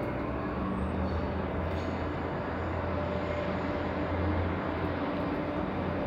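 Steady low rumble and hum of a transit vehicle running at a station platform, the low hum swelling about a second in, with no sudden events.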